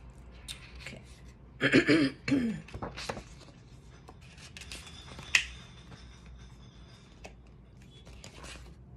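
Pages of a children's book being handled and turned: soft paper rustles and scattered clicks, the sharpest about five seconds in, with a brief murmur of voice about two seconds in.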